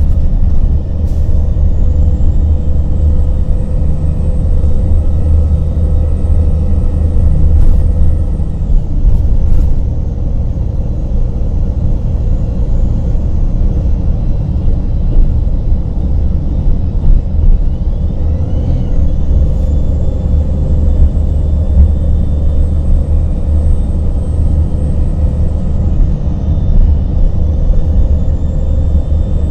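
Cabin sound of a 2000 Gillig Phantom transit bus on the move: its Cummins ISM 10.8-litre diesel and road noise give a steady low rumble. A faint high whine rises and later fades away, twice over.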